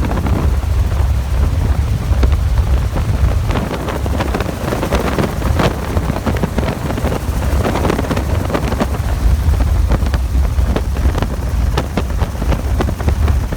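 Helicopter running in flight: a steady low drone of engine and rotor, with wind buffeting the microphone in irregular crackles.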